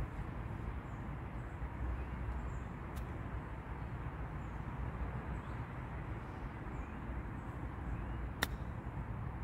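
A single sharp click about eight and a half seconds in: a 60-degree wedge striking a golf ball on a short chip shot, over a steady low outdoor rumble.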